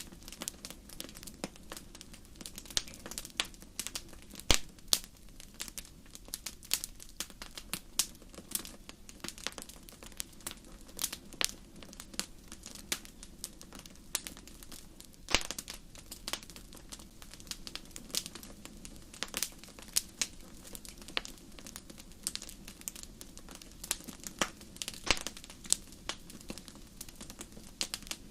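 Wood fire crackling: irregular sharp pops and snaps, several a second, some louder than others, over a low steady rush.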